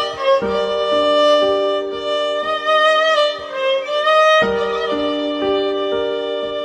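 Instrumental music: a wavering, violin-like lead melody over held chords and a bass line that change every second or two.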